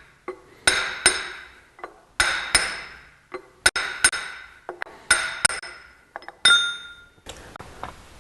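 Hammer striking a brass drift to drive a Ford 9-inch differential's ring gear off its carrier, working side to side: sharp metallic blows in pairs about every second and a half, each ringing briefly. A last blow about six and a half seconds in rings longer.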